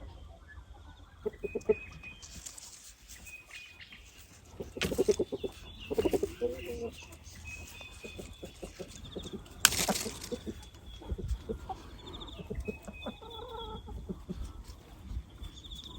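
Domestic hens clucking in short calls, with a brief loud rustle about ten seconds in. Small birds chirp thinly in the background.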